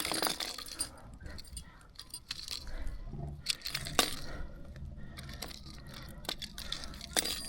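Scattered metallic clinks, scrapes and a few sharp knocks of fishing gear being handled on rocks, such as pliers and lure hooks.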